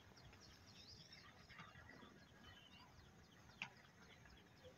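Near silence with faint bird chirps in the background and one faint click about three and a half seconds in.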